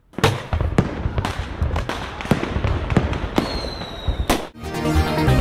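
Fireworks going off: a quick series of bangs and crackles, with a whistling firework's slightly falling whistle about three and a half seconds in. Near the end the fireworks stop and electronic music with a steady beat starts.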